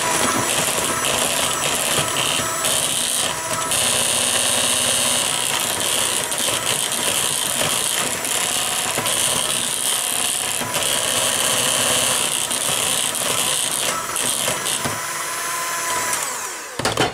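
Electric hand mixer running steadily, its twin beaters whirring through thick cake batter; the motor stops near the end.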